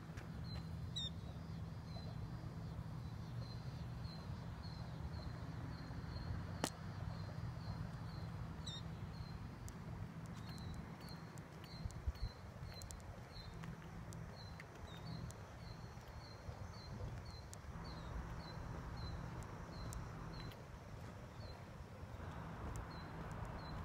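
Outdoor ambience: a steady series of short, high chirps, about two a second, over a low rumble, with a single sharp click about seven seconds in.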